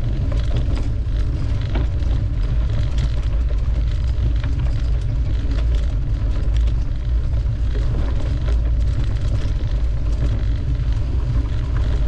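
Heavy, low wind noise on the microphone of a moving mountain bike, with scattered rattles and knocks from the bike jolting over a bumpy dirt trail.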